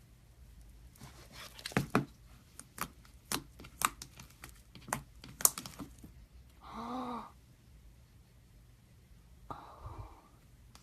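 Slime being handled, giving a run of sharp sticky clicks and pops for about five seconds. A brief pitched sound follows, then a softer rustle with a low thump near the end.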